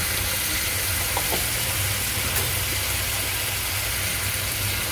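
Fish steaks braising in a frying pan: a steady hiss of simmering sauce over a low, steady hum, with a few faint ticks.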